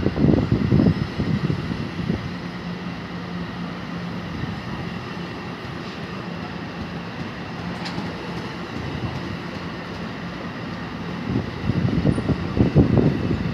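Passenger train rolling past on the Northeast Corridor, a steady running sound with a low hum. Wind buffets the microphone at the start and again near the end.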